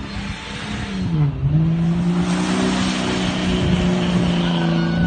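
Off-road vehicle engine running hard: its revs drop briefly about a second in, then climb back and hold steady, over a loud rushing noise of tyres and wind.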